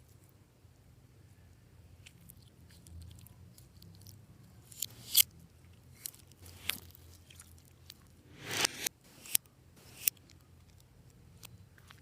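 Clear slime being squished and mixed by hand: scattered sticky pops and crunches, with the loudest cluster about two-thirds of the way in.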